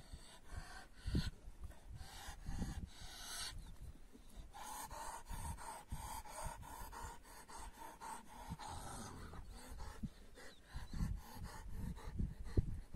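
Large Kangal-type shepherd dog panting hard in quick, even breaths, several a second; this is a dog cooling itself in hot weather.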